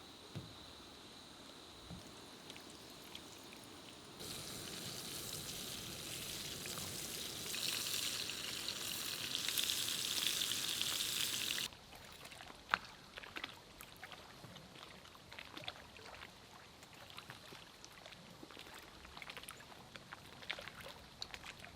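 Fish frying in a pan: a hissing sizzle that starts about four seconds in, grows louder, then cuts off sharply near the middle. After it come quieter, scattered crackles and pops.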